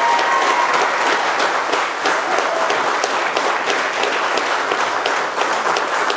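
Wedding guests applauding the couple's kiss: many hands clapping in a dense, steady patter.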